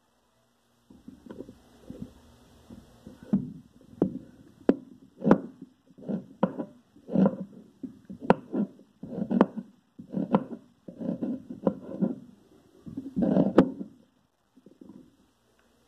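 Large kitchen knife slicing an onion on a wooden cutting board: a run of knife strokes, one to two a second, each a dull thud of the board with a sharp tap as the blade meets the wood. The strokes pause briefly near the end.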